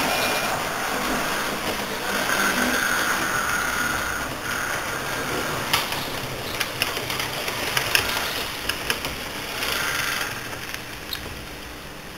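Model electric train running into the station on the layout: a steady small-motor hum and wheel rumble, with a run of sharp clicks from the wheels on the track in the middle, getting quieter near the end as it comes to a stop.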